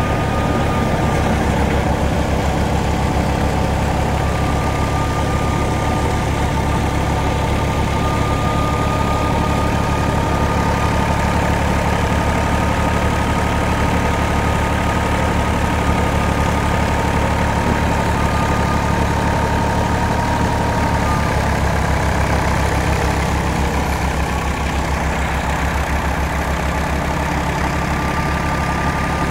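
New Holland 480 tractor's three-cylinder diesel engine running steadily with a fast, even beat while driving a belt-powered wheat thresher, with a steady high whine over it. The engine note shifts slightly about two-thirds of the way through.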